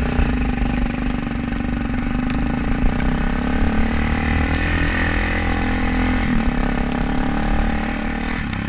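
Yamaha YZ450F dirt bike's single-cylinder four-stroke engine running steadily at low revs, with no big revving.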